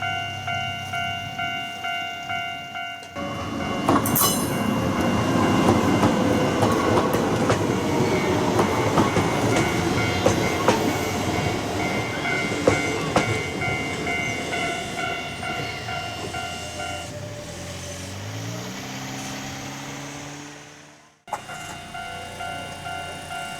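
Japanese level-crossing alarm ringing in a repeating pulse, about two strikes a second, then an Iga Railway train runs over the crossing with a loud rumble and clatter of wheels, with a brief sharp high sound as it arrives. The alarm stops as the train clears and a rising whine follows; after a sudden cut the crossing alarm is ringing again.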